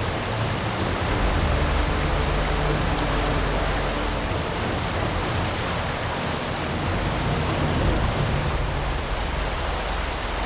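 Steady rushing water, an even unbroken roar of noise.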